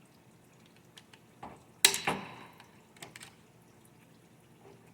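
Light metallic clicks and one loud sharp metal clank with a brief ring about two seconds in, as a snap ring is pried out of its groove in an automatic-transmission clutch drum.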